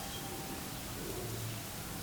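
Hands rubbing through hair and over the scalp in a head massage: a soft, steady rustling over background hiss, with no cracks.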